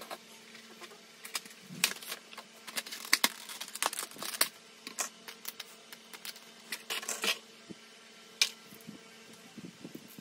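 Irregular sharp plastic clicks and taps from handling and posing small plastic action figures and setting a figure box down on a shelf, over a faint steady hum.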